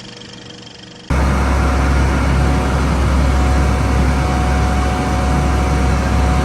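Tour boat's engine running steadily, a loud low drone with a constant whine over it, cutting in abruptly about a second in after a quieter hum.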